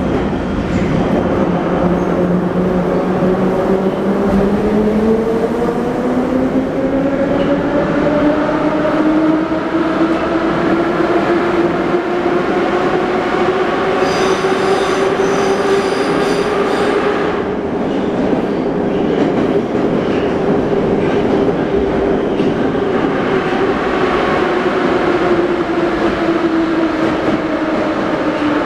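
81-717.5 metro car heard from inside while under way: the whine of its traction motors and gearing climbs in pitch over the first several seconds as the train gathers speed, holds steady, then sinks slightly near the end, over a constant rumble of wheels on rail. A thin high squeal sounds for about three seconds midway.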